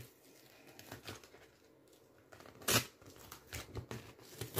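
Paper being handled and peeled apart by hand: soft rustles and small clicks, with a louder short rustle of paper about two-thirds of the way through and another at the end.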